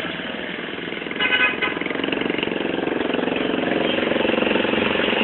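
Street traffic with vehicle engines passing close. A brief horn honk sounds about a second in, then an engine rumble builds as a small truck drives past.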